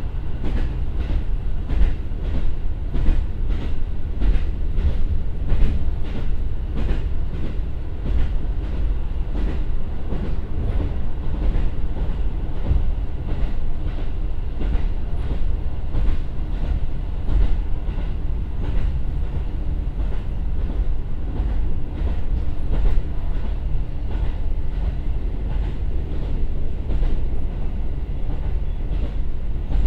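Cabin sound of a JR Hokkaido KiHa 150 diesel railcar running, with its Komatsu 450 PS turbo diesel engine droning beneath the floor and wheels clicking over rail joints, the clicks thickest in the first ten seconds or so. The car is slowing from about 70 to 60 km/h.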